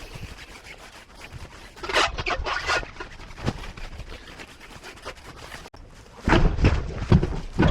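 Scattered knocks and clatter of tyre-fitting work, with a louder, busier run of knocking over the last second and a half.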